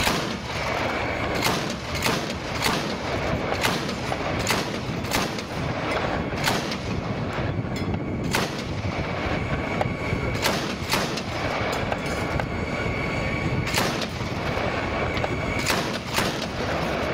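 Live military gunfire: a string of single heavy shots at irregular intervals, often about a second apart, with a couple of short lulls, over steady background noise.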